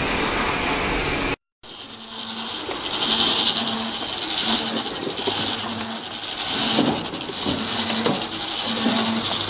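Automatic double-sided bottle labeling machine running: a steady mechanical hiss with a short low hum that repeats about once a second, and scattered light clicks. The sound cuts out for a moment about a second and a half in.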